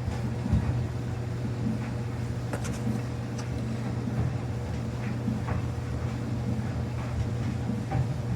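Samsung washing machine running mid-cycle with a load of towels: a steady motor hum with irregular soft swishes and knocks from inside the drum.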